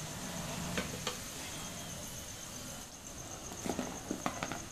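Potato fries sizzling in hot oil in a steel wok at the half-fried first stage, with a few light metal clicks, about a second in and several near the end, as a wire skimmer lifts them out and taps against the pan and plate.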